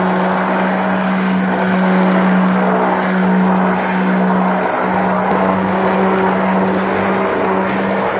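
Stick blender running steadily with its blade in a glass bowl of warm custard, whipping in cake-cream powder: a constant motor hum under a churning whir.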